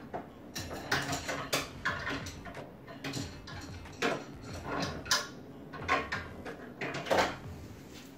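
Metal objects clinking and knocking together irregularly, about a dozen sharp strikes, several with a short ring.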